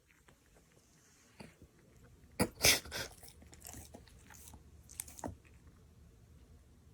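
A pet chewing: scattered soft crunches and bites, the loudest cluster about two and a half seconds in.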